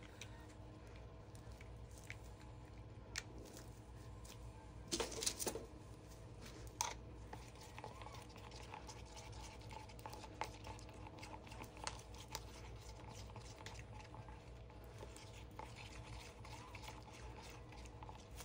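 Faint room hum with scattered light clicks and taps of hands handling plastic cups and tools, with a short cluster of louder taps about five seconds in.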